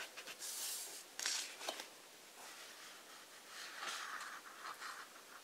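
Soft paper rustles and scrapes from a hand sliding over and handling the pages of a large hardcover book, in a few short bursts.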